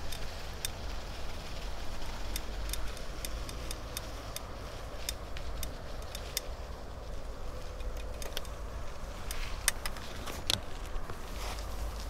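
Bicycle being ridden over uneven ground: irregular sharp clicks and light rattling over a steady low rumble of wind on the microphone. The clicks are densest near the end.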